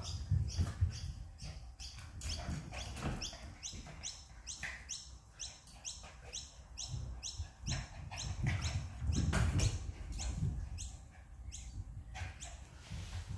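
A Maltese and a poodle play-fighting on a hardwood floor: their claws click and skitter in quick runs of sharp ticks as they scramble and chase.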